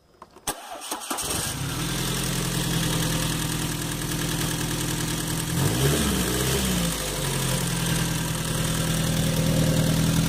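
Carbureted Volkswagen AP four-cylinder engine cranked on the starter and catching about a second in, then idling steadily on gasoline. Around the middle the throttle is blipped once at the carburetor, a short rise and fall in engine speed, before it settles back to idle.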